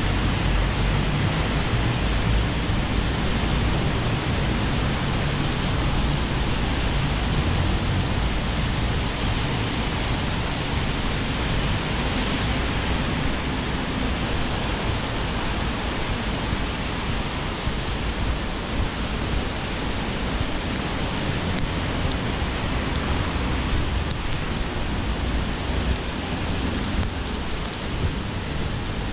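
Steady hiss of rain and tyres on a wet road, with wind buffeting the microphone as a low rumble that is heaviest in the first third.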